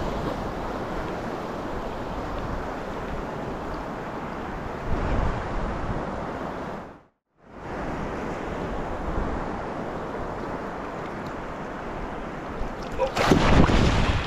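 Surf washing on the beach with wind on the microphone, a steady rushing noise; it cuts out briefly about halfway through, and a louder rush of water and wind comes near the end.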